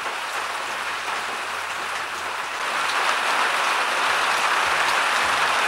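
Heavy rain pouring down, a dense, steady hiss that grows louder about three seconds in.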